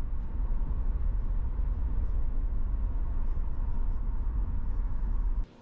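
Steady low rumble of road and engine noise heard from inside a moving car. It cuts off suddenly near the end.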